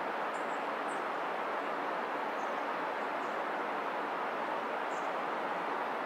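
Steady, even rushing noise, with a few faint, short, high bird chirps scattered through it.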